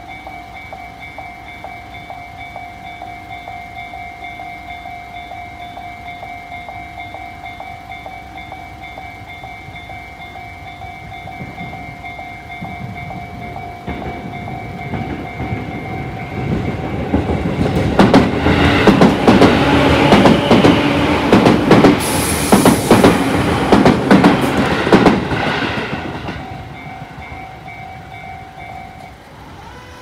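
Electronic level-crossing bell of the Tobu Tojo type ringing steadily while a Tobu Noda Line electric train approaches and passes. The train is loudest about halfway through, with wheels clattering over the rail joints, then fades. The bell keeps the same tone after the train has passed, with no change of tone, and stops near the end.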